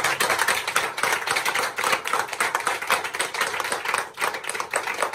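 A group of people applauding, a dense run of hand claps.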